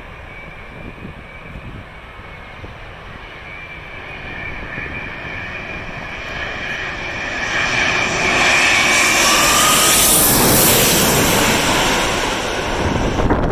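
Jet airliner on final approach passing low overhead: the engine whine builds over several seconds, is loudest about two-thirds of the way in, then starts to fade.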